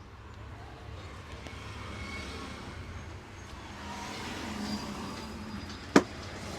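Steady roadside traffic rumble, swelling a little a few seconds in, with one sharp, loud impact near the end.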